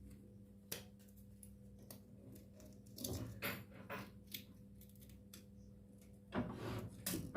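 Faint clicks and crinkling of stiff insulating paper being shaped by hand for a fan stator's slots, with two louder bursts of crackle about three seconds in and near the end, over a steady low hum.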